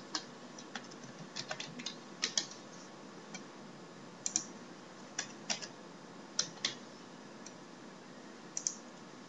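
Typing on a computer keyboard: irregular keystrokes, singly and in short runs.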